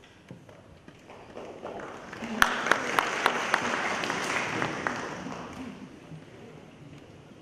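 Brief, scattered audience applause in a concert hall between movements, swelling about a second in and dying away after a few seconds, with a run of sharp single claps close to the microphone at its height.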